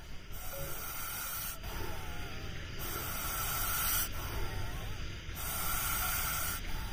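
Young Russell's viper hissing loudly, a breathy hiss that swells and eases with each breath: three long, strong hisses of about a second and a half, with softer hissing between them.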